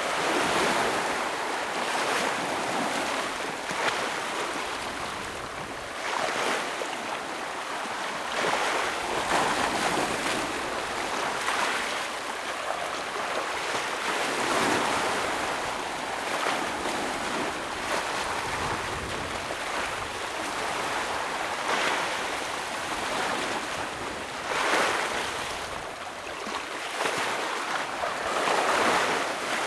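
Ocean waves breaking on a rocky shore, a steady rushing wash that swells every few seconds as each wave hits the rocks.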